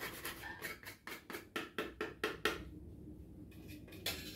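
Block of homemade chocolate being grated on a small metal hand grater: quick scraping strokes, about five a second, that stop about two and a half seconds in, followed by a single click near the end.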